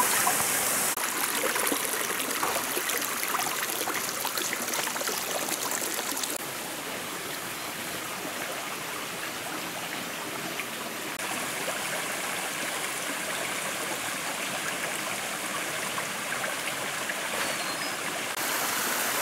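Shallow rocky stream running over stones: a steady rush of water whose level steps down about six seconds in and rises again near the end.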